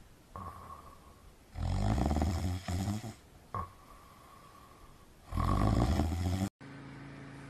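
Snoring: two loud, deep snores a few seconds apart, with a thin whistling breath between them. A steady low hum takes over near the end.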